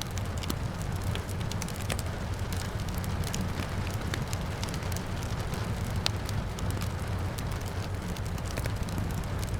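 Wood fire crackling, with frequent sharp pops and one louder pop about six seconds in, over a steady hiss of rain and a low rumble.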